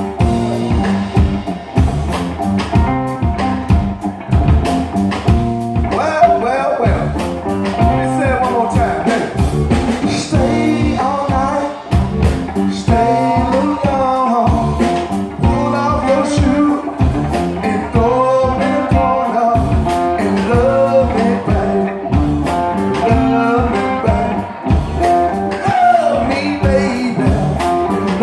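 Live blues-rock band playing: a male singer sings over electric guitars and a drum kit.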